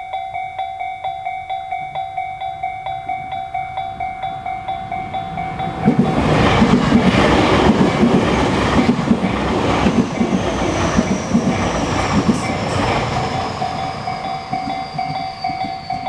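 Japanese level-crossing electronic warning bell (Tobu 'sound C') ringing steadily, about three strikes a second. About six seconds in, a Tobu 60000 series electric train passes over the crossing, its wheels clacking over the rail joints and drowning out the bell, with a high whine falling slowly in pitch. The bell is heard again near the end.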